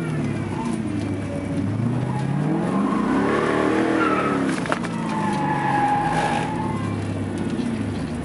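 Pontiac Trans Am's engine heard from inside the cabin, revving up and back down a few seconds in, then running steadily at low revs as the car rolls slowly. A thin high squeal sounds twice in the middle.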